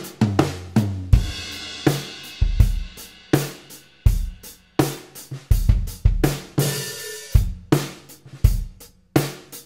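Drum kit groove led by a 6.5 x 14 steel snare with a coated top head in its standard, open tuning, mixed with bass drum hits and cymbals, with two longer cymbal crashes.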